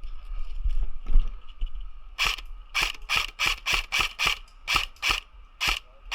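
Airsoft electric rifle firing single shots in quick succession: a string of about ten sharp clacks, two to three a second, starting about two seconds in.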